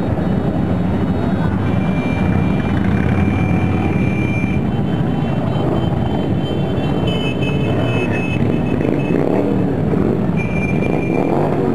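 Many motorcycle engines running together as a parade of cruisers and choppers rides past, a dense steady rumble. A thin high steady tone sounds three times over it.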